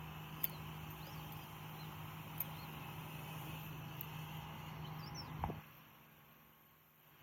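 A steady low machine hum with a few sharp clicks; the hum cuts off about five and a half seconds in, leaving quieter background.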